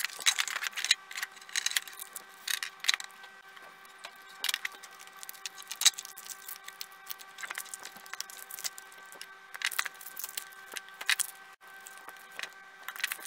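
Handling noise from taking apart an e-bike battery pack: irregular clicks, clacks and crinkling as the cell pack is lifted out of its plastic case and its insulating wrap is pulled back. A faint steady hum sits underneath.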